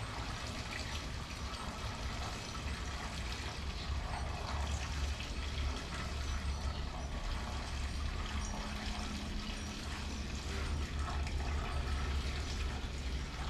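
Leftover gasoline pouring and trickling steadily out of a motorcycle fuel tank as it is emptied.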